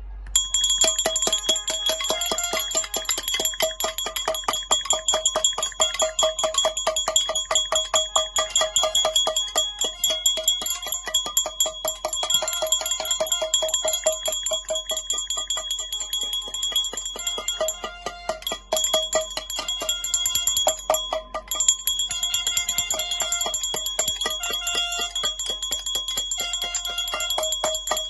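Metal pots and pans being bashed over and over in a fast, steady rhythm of clangs, each strike leaving a ringing metallic tone, with a couple of brief pauses late on.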